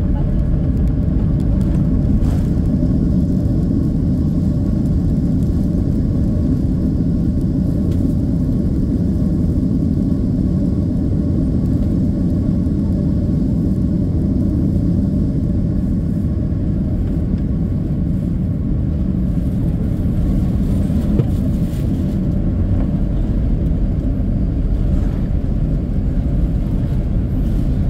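Steady low rumble inside the cabin of a Boeing 767-300 airliner rolling on the ground just after landing. It is the noise of the engines and the wheels on the runway, with a couple of faint knocks about 2 and 21 seconds in.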